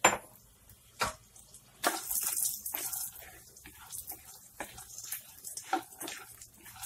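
Chopped walnuts frying in hot ghee in a non-stick kadhai, stirred with a spatula: a few sharp knocks of the spatula on the pan in the first two seconds, a light sizzle strongest around two seconds in, then quieter scraping and clicking as the nuts are turned.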